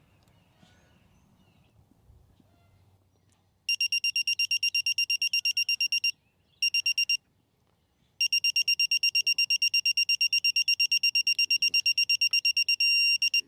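Yellow Jacket 60648 digital torque wrench beeping rapidly at one high pitch, about six or seven beeps a second, as the flare nut nears the set 25.8 foot-pounds. The beeping starts a few seconds in, stops twice briefly, then turns into a steady unbroken tone near the end.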